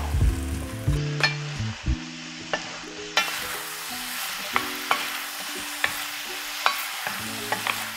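Chicken pieces and sauce sizzling in a pot as they are stir-fried with a wooden spatula. Scattered sharp knocks and scrapes come through as the spatula strikes the pot.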